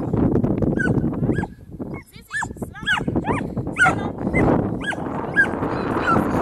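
A dog giving a rapid series of short, high yips and whines, about two a second, over a steady low noise.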